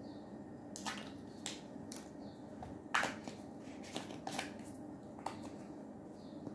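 Scattered light clicks and taps of small plastic spice-jar lids and shaker caps being opened and handled, the loudest about three seconds in.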